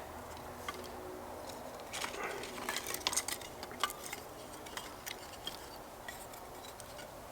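Sticks of wood knocking and clicking lightly against each other as they are laid into a small log-cabin fire stack, with scattered clicks that are busiest about two to four seconds in.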